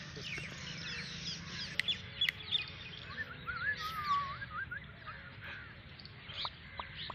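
Many birds chirping and calling, with a wavering, warbling call about three to four seconds in and a few sharp clicks.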